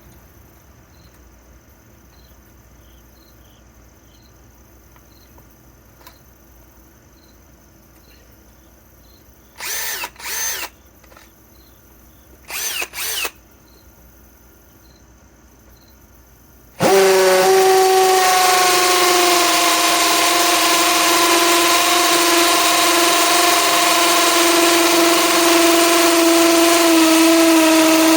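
Metabo HPT DV18DBFL2 cordless hammer drill with a worn 3/8-inch by 8-inch masonry bit drilling brick. Two pairs of short bursts come around ten and thirteen seconds in, then from about seventeen seconds in the drill runs steadily and loudly.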